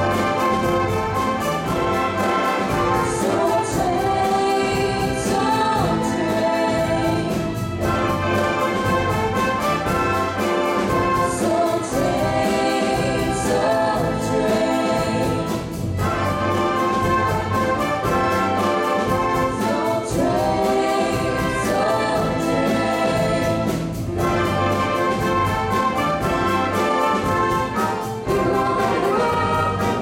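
Live orchestra and band playing a 1970s Philly soul instrumental with strings, brass and a steady beat, with a group of singers joining in.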